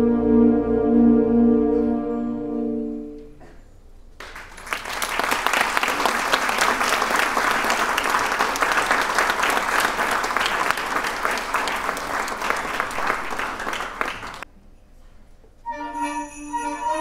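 A concert band holds a final chord that is cut off about three seconds in, followed by about ten seconds of audience applause. Near the end, jingle bells and the band start the next piece.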